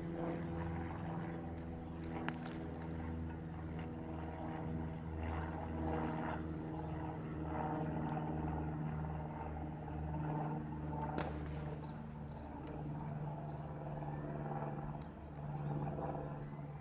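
A steady low mechanical hum with a fixed pitch runs throughout. Two sharp cracks of a baseball impact come about two seconds in and about eleven seconds in.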